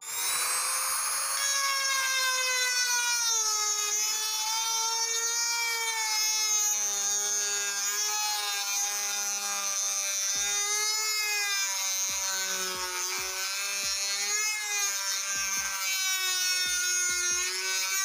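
Handheld rotary tool running a grinding stone inside a metal pipe offcut, grinding out the bore to thin the wall. A steady high whine that starts right away, its pitch wavering and dipping slightly, with a few faint ticks in the second half.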